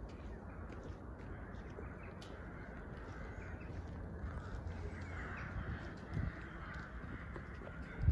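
Outdoor walking ambience: wind rumbling on the phone's microphone, faint footsteps on a wet path, and birds calling in the trees, with a single low bump at the very end.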